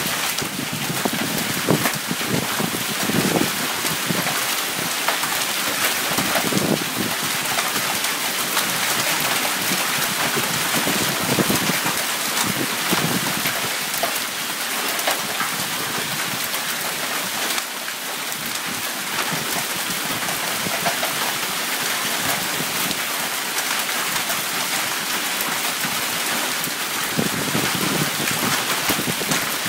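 Hail mixed with heavy rain pelting the lawn, pavement and shrubs: a dense, steady patter of countless small hard hits.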